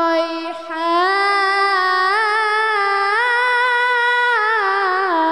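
A young girl's voice reciting the Quran in melodic tajweed, drawing out a long ornamented note. After a short break about half a second in, the pitch climbs in steps and comes down near the end.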